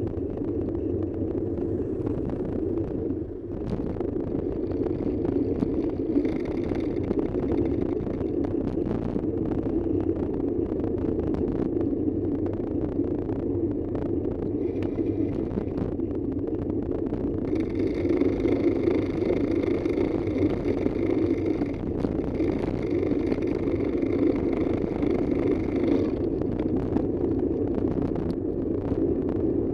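Steady rumble of a vehicle driving along a road, with a higher whine that comes in twice for several seconds.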